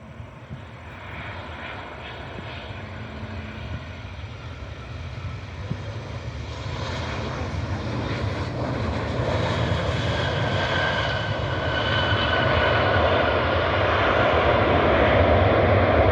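A Boeing 737-700 airliner's jet engines approach on arrival, the noise growing steadily louder throughout, with a thin whine coming in over the rumble in the second half.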